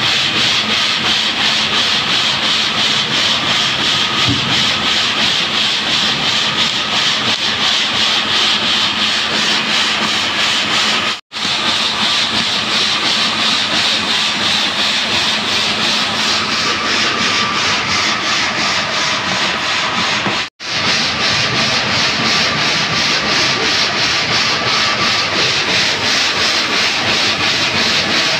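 Steady rasping machine noise of a stone-cutting gang saw running, cut off twice for a split second at about a third and two thirds of the way through.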